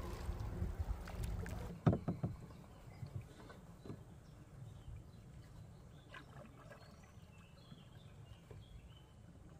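Canoe being paddled on a river: a low rushing noise for the first couple of seconds that stops suddenly, a few sharp knocks about two seconds in, then quiet water noise with faint high chirps.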